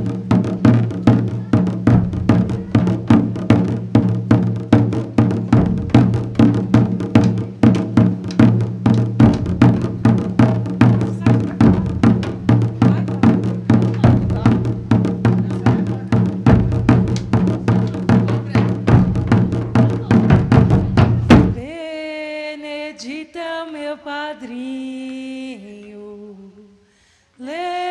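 Samba de bumbo percussion: a large bumbo bass drum struck with a padded mallet, with other percussion, in a steady beat. About twenty-two seconds in, the drumming stops suddenly and a lone voice sings unaccompanied, pausing briefly near the end.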